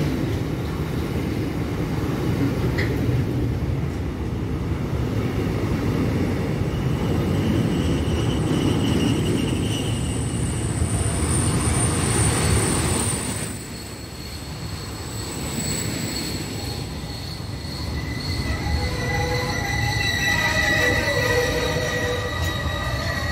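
Container freight train's loaded flat wagons rolling past close by: a steady rumble of wheels on rail, with thin, high wheel-squeal tones that get stronger and come in several pitches at once in the last few seconds.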